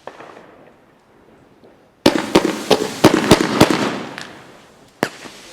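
A consumer fireworks cake (BK Feuerwerk) firing. After a lull, about two seconds of rapid sharp cracks and bangs go off together, then one more single bang near the end.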